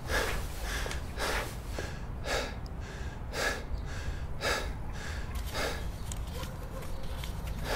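A man breathing heavily, one loud breath about every second.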